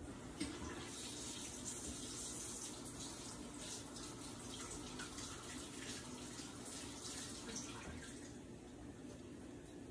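Kitchen faucet running into the sink, starting with a knock about half a second in and shutting off around eight seconds in.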